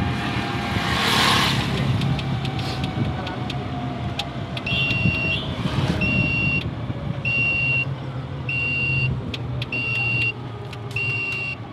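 A vehicle driving along a road: a steady low engine hum with road noise and scattered rattling clicks, and a brief rush of noise about a second in. From about five seconds in, an electronic beeper sounds at a steady rhythm, a short high beep roughly every second and a quarter.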